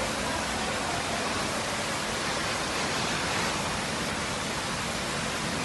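Steady, even rush of water with no separate events.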